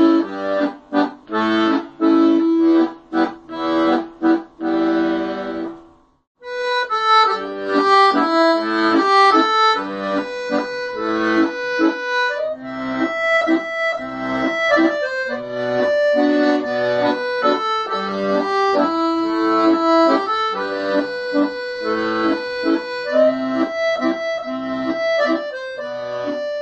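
Accordion playing: short, repeated chords at first, a brief break about six seconds in, then a lively melody over held chords.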